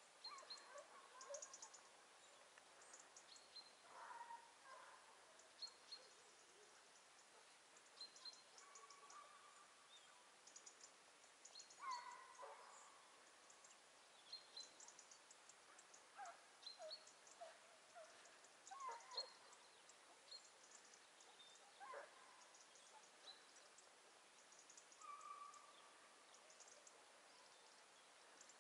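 Faint, distant hunting hounds baying on a hare's trail in scattered bursts, with small birds chirping and ticking.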